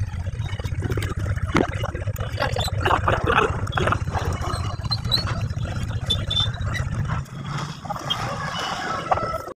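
A low steady rumble, with scattered light clicks and clinks of spoons on plastic plates as food is eaten; the rumble falls away about seven seconds in.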